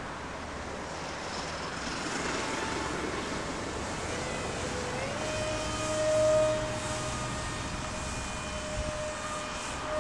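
Radio-controlled flying wing's motor and propeller whining at a steady pitch over wind noise. The pitch steps up a little about five seconds in, and the whine then holds.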